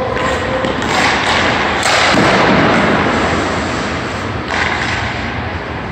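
Ice hockey goalie drill on a rink: a sharp knock of a hockey puck about two seconds in, with skate blades scraping the ice as the goalie drops into the butterfly.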